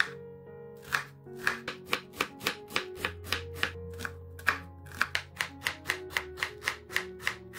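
Chef's knife dicing an onion on a wooden cutting board: a quick, even run of sharp chops, about four a second, the blade striking the board each time. Soft background music plays underneath.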